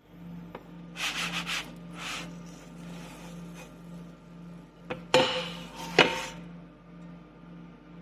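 Rubbing and scraping noises over a steady, evenly pulsing low hum, with two sharp knocks about five and six seconds in.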